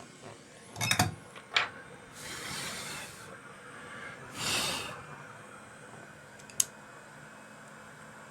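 A few sharp clicks and taps of small tools at a repair bench, with two short hissing sounds about a second long in between.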